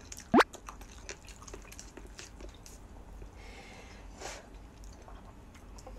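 Instant cup noodles being eaten with chopsticks: a noodle is slurped in with a short rising squeak just under half a second in, followed by faint chewing and small scattered clicks.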